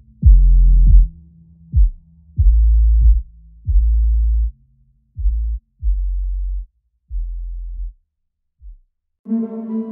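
Electronic background music: a run of deep, booming bass notes, each starting with a dropping thump, that grow quieter and die away. After a brief pause, a steady synth chord starts near the end.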